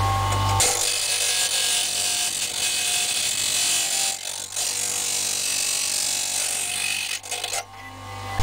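A small piece of metal ground against an abrasive while the lockpick blank is shaped: a steady, loud rasping hiss that dips briefly about four seconds in and again near the end.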